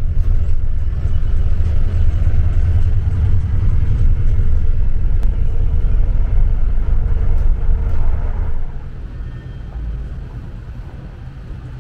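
Low, steady rumble of a city bus heard from a seat inside while it drives, which gives way about eight and a half seconds in to quieter street traffic noise.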